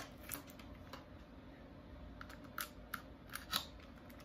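Faint, scattered clicks and rustles of a plastic container and tape being handled, the loudest click about three and a half seconds in.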